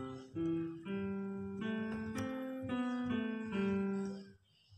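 A slow, single-line melody of about eight notes played on a Worlde Panda Mini MIDI controller, sounded by FL Studio Mobile on a phone through a loudspeaker. Each note is held until the next one, and the playing stops shortly before the end.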